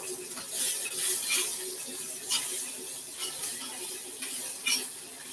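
Peppers and onions sizzling in a skillet, with a range hood fan running and several short shakes of garlic powder over the pan.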